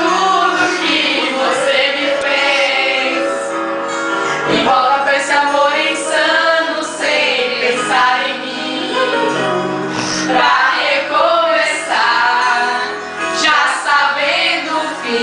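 A group of women singing along together to a sertanejo song, with the recorded music playing behind their voices.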